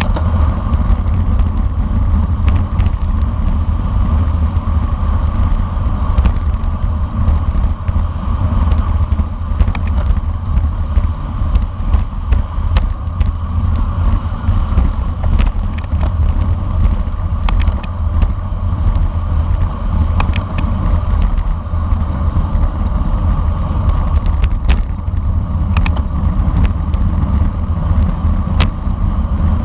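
Rider's-eye sound of a bicycle at race speed: steady wind buffeting and rumble on the camera microphone, with scattered sharp clicks and rattles from the bike and road.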